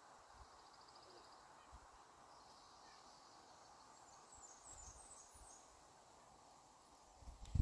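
Faint outdoor ambience over a steady low hiss: small birds chirping, with a short rapid trill about half a second in and a run of high chirps around the middle. A single low thump comes near the end.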